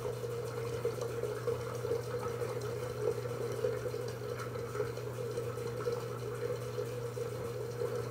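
Bathroom tap running steadily into a sink, over a steady low hum.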